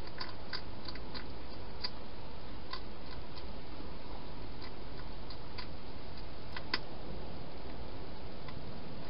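Wild hedgehog eating at a bowl: irregular small crunching clicks, quicker in the first few seconds and sparser after, over a steady background hiss.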